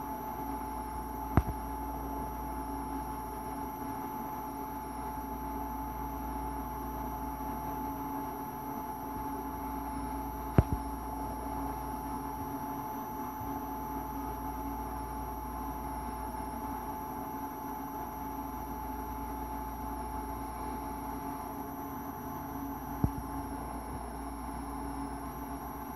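Steady electrical hum with a faint high whine above it, broken by three sharp clicks: one near the start, one about ten seconds in, one near the end.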